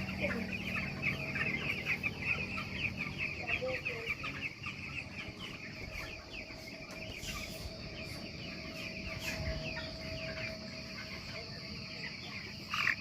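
A large flock of chickens calling continuously, a dense chorus of many overlapping high-pitched peeps and chirps, with a faint steady hum underneath.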